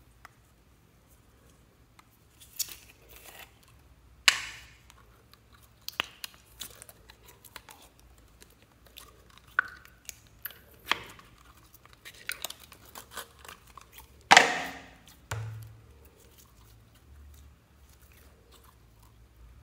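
Crystal mud slime squeezed out of a soft plastic tube by hand: irregular squelches and crackles, with two louder wet pops about four and fourteen seconds in.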